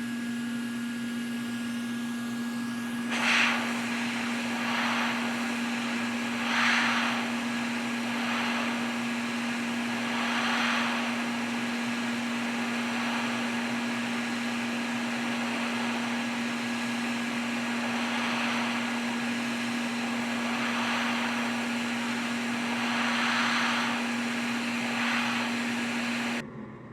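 A small blower running steadily, with a constant low hum under its hiss. The hiss swells briefly every few seconds, and the sound cuts off abruptly near the end.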